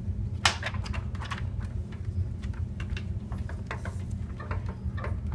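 Irregular sharp clicks and taps, several a second, over a steady low hum.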